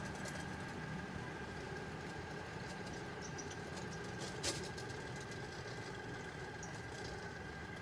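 Electric drum-type drain-cleaning machine running steadily, its motor giving an even hum with a thin steady whine. One sharp click about four and a half seconds in.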